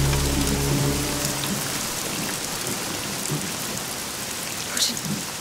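Steady heavy rain pouring down, an even hiss of falling water. A low held drone fades out about a second in.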